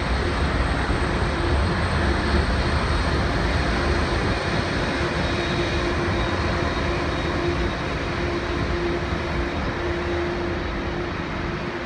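Airliner jet engines running at taxi idle: a steady rush of engine noise with a constant hum under it and a low rumble that eases after the first few seconds.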